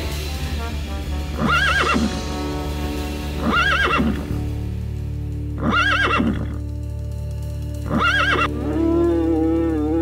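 A horse-like animal calls over background music. There are four short neigh-like cries, each arching up and down in pitch, about two seconds apart, then a longer, lower held call near the end.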